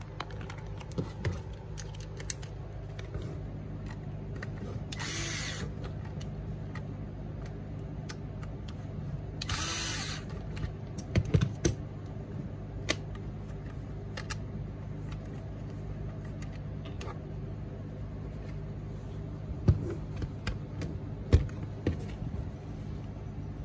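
Small screws and metal hardware clicking and knocking against the plastic housing of a motor controller and the bench mat while a mounting bracket is fitted, with two short whirs of a cordless drill/driver, about five and ten seconds in.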